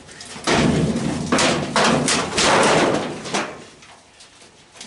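Metal parts of a stripped-down washing machine being handled: a run of clattering knocks and scrapes over about three seconds.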